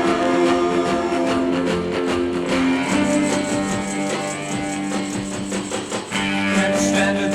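Instrumental passage of a 1965 soul record: guitar over the band, with held chords that change about three seconds in.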